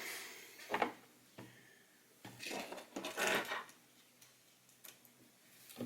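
Small handling sounds of a plastic computer mouse and its parts on a work surface: a sharp knock about a second in, then a short scraping rustle and a few light clicks.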